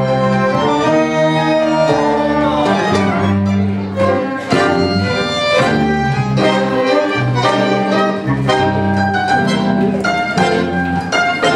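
Tango orchestra (orquesta típica) playing live: violins, bandoneón and guitars together in ensemble, with regular rhythmic accents.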